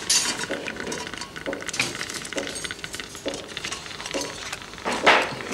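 Metal surgical instruments clinking and clicking as they are handled during an operation, in a series of short, light knocks. A short rush of noise comes about five seconds in.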